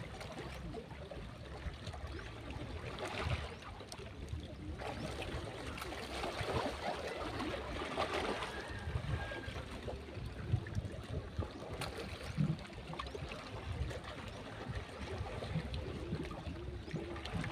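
Shallow water washing and trickling at the shore, rising and falling unevenly.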